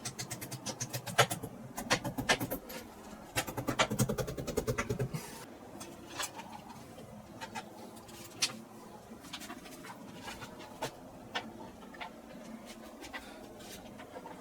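A hammer tapping: quick runs of light taps through the first five seconds, then scattered single taps.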